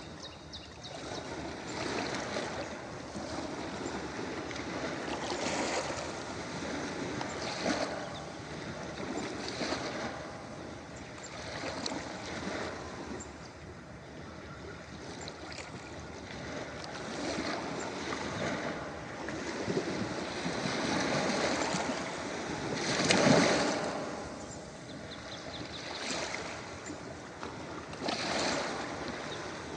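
Ocean waves washing onto a beach: a steady rush of surf that swells and falls every couple of seconds, with one louder wave breaking about three-quarters of the way through.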